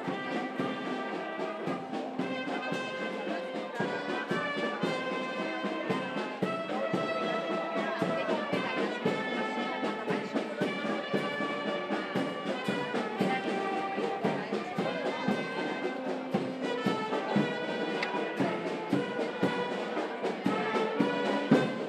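Brass band playing a procession march: trumpets and trombones hold sustained melody notes over steady percussion hits.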